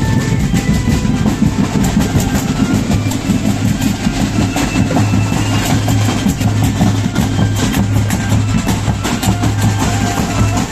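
Marching drum band playing: bass drums and snare drums beating a continuous, steady rhythm.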